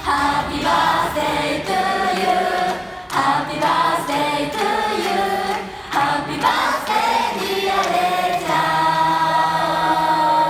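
A group of young women singing together into microphones over a pop backing track, a live J-pop idol song. Their phrases are sung in unison with long held notes.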